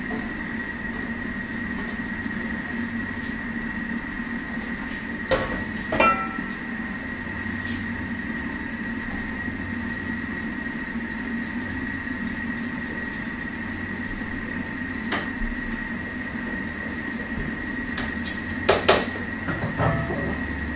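Thermomix TM6 running steadily while it cooks, a low motor hum with a thin, steady high whine. Over it come a few knocks of metal bowls and utensils: two about five seconds in and a cluster near the end.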